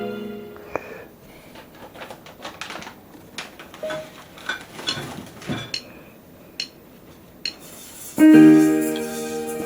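Casio LK-280 electronic keyboard: a held chord fades out, then a run of light clicks and taps for several seconds. About eight seconds in, a loud new chord sounds and starts to fade.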